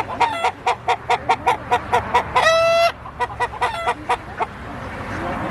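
Chickens clucking in a quick run of short repeated calls, with one longer, steady-pitched call held for about half a second, about two and a half seconds in.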